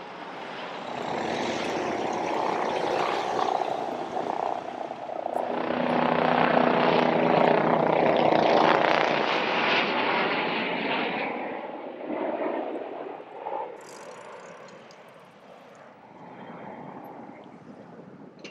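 Helicopters flying over: the rotor and engine noise swells, peaks several seconds in, then fades away as they pass, with fainter passes following.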